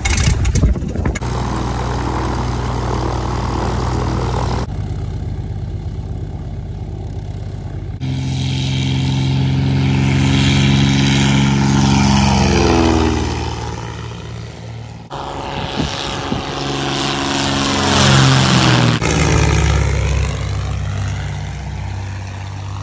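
Piper Pawnee's six-cylinder Lycoming O-540 engine and fixed-pitch propeller running, in several short clips. Twice the plane passes close by and its pitch falls as it goes.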